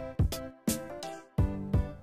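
Background music with a steady beat of about three hits a second under pitched instrument notes.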